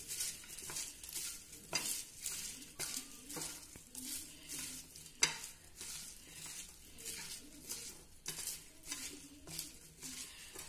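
Hand tossing salted pieces of cut taro stem on a ceramic plate, mixing in the salt: faint, irregular rustles and clicks of the pieces against each other and the plate, with one sharper click about five seconds in.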